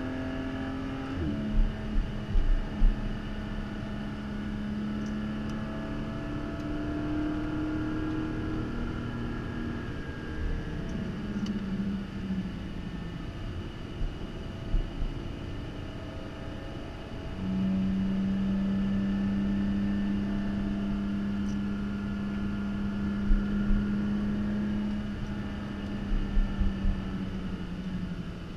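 2022 Porsche Cayman GT4's 4.0-litre flat-six heard from inside the cabin at track speed, its pitch rising under acceleration, stepping down about a second in, holding a steady note in the middle and falling near the end as the car slows. Brief low thumps come twice, near the start and near the end.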